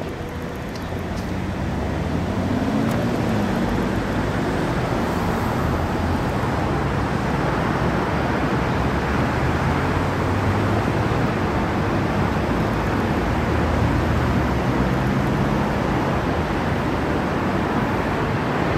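Steady road traffic noise from passing vehicles, swelling over the first two seconds and then holding, with engine tones rising and falling a few times.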